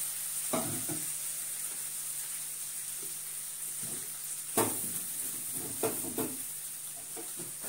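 Onion and tomato masala sizzling steadily in a frying pan, with a few metal knocks of pans being moved on a gas stove; the loudest, about four and a half seconds in, as a kadai of oil is set down on the burner.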